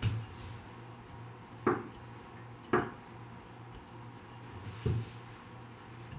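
Wooden rolling pin rolling out dough on a floured countertop, knocking down on the counter four times: once at the start, then at about one and a half, two and a half, and four and a half seconds in.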